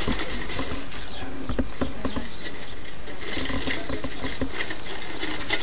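Small wheeled hand cart rattling and clicking as it is pushed along a yard path.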